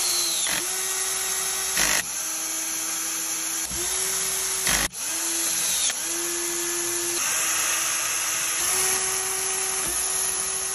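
Handheld electric power tool of the drill type running in a string of about nine short bursts. Each burst holds a steady whine and is cut by a brief click before the motor spins up again.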